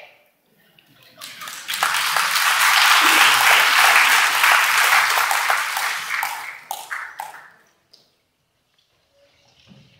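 Audience applauding after a choral number ends: the clapping starts about a second in, swells, and dies away after about six seconds.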